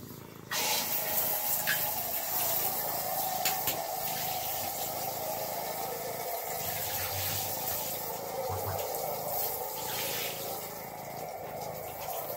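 Water running steadily from a tap, a continuous rushing hiss that comes on suddenly about half a second in.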